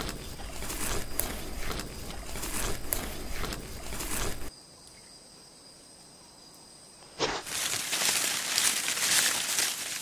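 Added sound-effect ambience: a noisy rustling with scattered ticks and clicks and a low rumble, stopping suddenly about four and a half seconds in. After a short quiet, a loud rushing hiss starts about seven seconds in.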